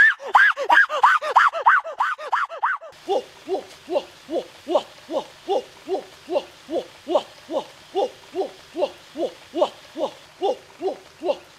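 Rapid, high-pitched cries from a man for about the first three seconds, then a white domestic goose honking in a steady series of short calls, about three a second.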